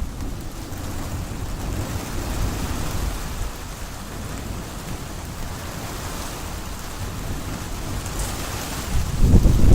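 Steady rain falling during a thunderstorm, with a low rumble of thunder underneath. Near the end a louder low rumble sets in.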